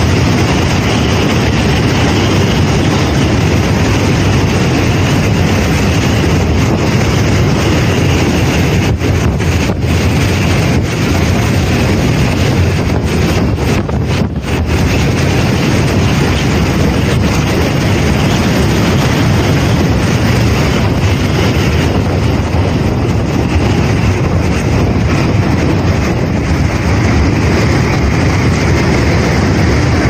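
Typhoon wind blowing hard, carrying driving rain and spray. It is a loud, steady rush that buffets the microphone.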